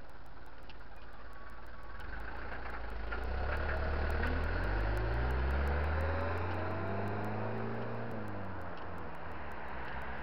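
A Mitsubishi flatbed light truck's engine passing close by: it grows louder and rises in pitch as the truck pulls alongside, then drops in pitch and fades as it drives away.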